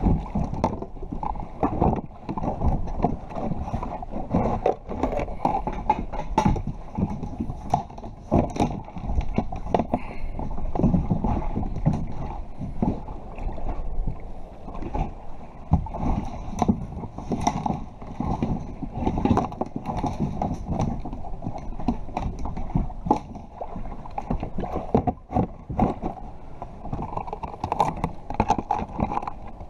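Sea water sloshing and slapping against the plastic hull of an Escualo fishing kayak, with frequent knocks and clatter of fishing gear being handled and stowed in the hull.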